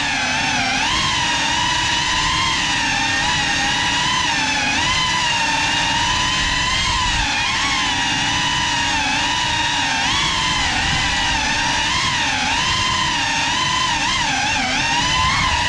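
Geprc Cinelog 35 cinewhoop's motors and ducted propellers whining, the pitch rising and falling all the time with the throttle.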